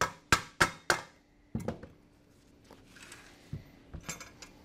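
Quick hammer taps on the metal rivet-tool base to knock out the leftover nails: four sharp strikes in the first second, about three a second. A clunk follows, then light metallic clinks of nails and plates.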